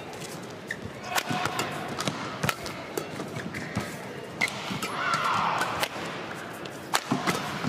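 Badminton rally: sharp cracks of rackets striking the shuttlecock and thuds of footfalls on the court, over a steady indoor arena background. A falling shoe squeak comes about five seconds in.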